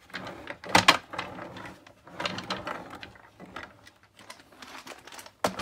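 Painted plywood box on casters being handled: a sharp wooden knock about a second in, then stretches of wood scraping and rattling, and another loud knock near the end.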